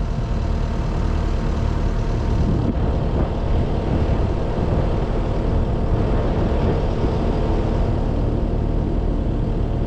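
Cat skid steer's diesel engine idling steadily at low idle, a continuous low rumble with a faint steady hum.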